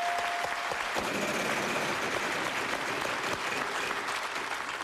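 Studio audience applauding. A steady electronic tone from the game-show puzzle board's letter reveal cuts off within the first second, and the big prize wheel ticks as it spins under the applause.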